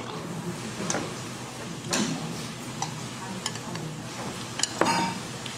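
Scattered light clicks and taps of tableware at a meal table, with a cluster of sharper clicks near the end, over a low steady background hum.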